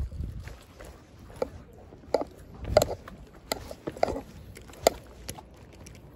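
Irregular sharp clicks and small knocks, about eight of them spread over a few seconds, from fishing line and a spinning reel being handled close to the microphone.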